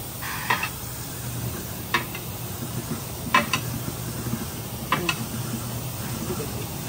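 Sharp metallic clinks of metal against metal, four of them about a second and a half apart, each ringing briefly, over a steady low machine hum.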